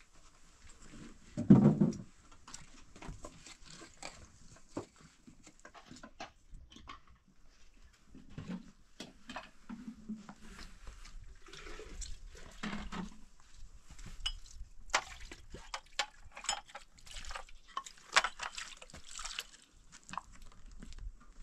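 Paper wrappers and a cardboard box being handled: irregular crinkling, rustling and small clicks as small paper-wrapped cakes are taken out and unwrapped. A louder low thud comes about one and a half seconds in.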